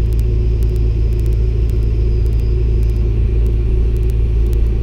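Excavator's diesel engine and hydraulics running steadily, heard from inside the operator's cab. A faint high whine stops about halfway through, and faint high clicks are scattered throughout.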